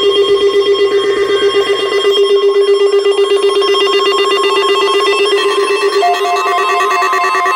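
A loud, continuous ringing tone that pulses rapidly, like an alarm bell, on several fixed pitches at once. A higher pulsing tone joins about six seconds in.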